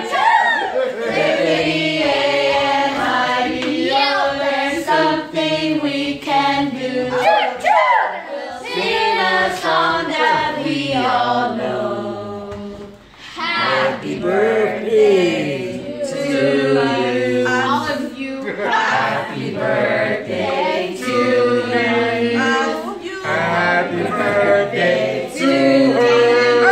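A group of people singing a birthday song together without accompaniment, men's and women's voices mixed, with a short break about halfway through before the singing starts again.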